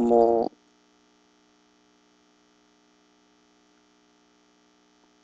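Faint, steady electrical mains hum in the recording, made of several fixed tones that hold unchanged, after one short spoken word.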